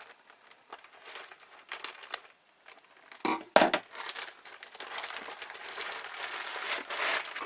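A mailing package being cut open and its wrapping handled: scattered small clicks and scrapes, two loud handling knocks about three and a half seconds in, then steady crinkling and rustling of the packaging.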